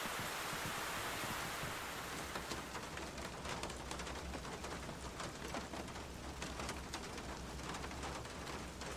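Steady rain falling, fuller for the first couple of seconds, then thinning into many sharp individual drops ticking close by, over a low steady rumble.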